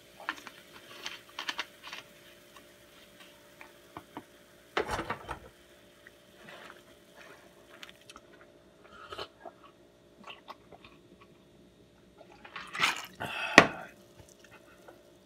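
Cola fizzing and crackling over ice in a glass mug, with scattered small clinks. Near the end comes a cluster of clinks and a sharp knock as the glass mug is set down on the countertop, all over a faint steady hum.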